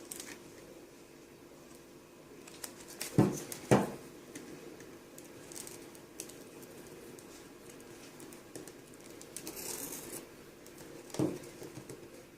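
Small hand tool working on a plastic-and-glass touchscreen assembly, with faint scraping and a few sharp clicks. The clicks come twice about three seconds in and once near the end, as the blade cuts through the double-sided adhesive holding the cracked glass touchscreen to the LCD.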